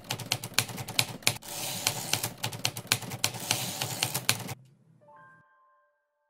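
Typewriter sound effect: a fast run of key clacks that stops after about four and a half seconds, followed by a few faint soft tones.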